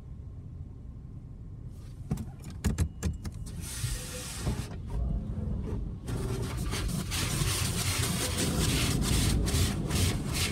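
A Washworld Razor touchless car wash heard from inside the vehicle's cabin: a low steady rumble, then scattered taps and splashes on the body from about two seconds in. From about six seconds a broad rushing noise of the wash equipment on the vehicle builds and grows steadily louder.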